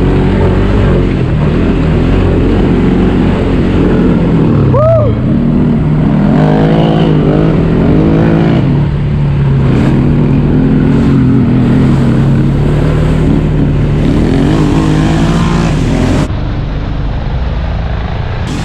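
Off-road vehicle engine running loudly, its pitch rising and falling with repeated revs. The sound changes abruptly about sixteen seconds in.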